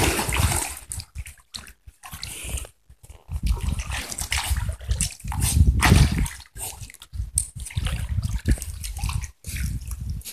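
A dachshund splashing and pawing in shallow stream water, the water sloshing and splattering in irregular bursts with short pauses between.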